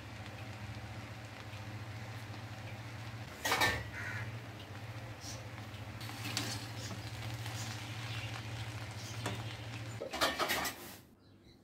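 Metal spatula clinking and scraping against a pan of rice, with one sharp clink about three and a half seconds in and a short clatter near the end, over a steady low hum that stops about ten seconds in.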